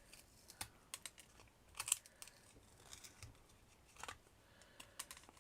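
Small, irregular snaps and clicks of thin chipboard being broken off in little pieces, about half a dozen sharp cracks, the loudest around two seconds and four seconds in.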